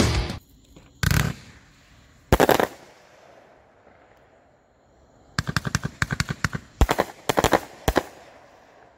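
3DPyro "The Fire God" 500-gram fireworks cake firing: two single shots about one and two and a half seconds in, then after a pause a fast volley of rapid cracks from about five and a half to eight seconds.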